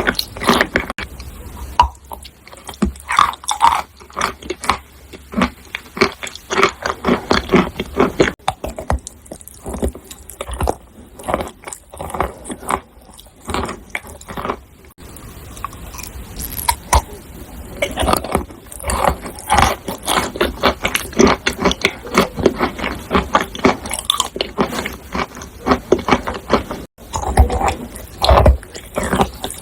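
Dry crunchy clay being crushed and crumbled close to the microphone: dense, irregular crackling and snapping, with a sparser stretch in the middle.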